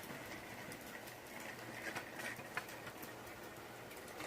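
Faint rolling hiss of a pro kick scooter's wheels on pavement, with a few light clicks.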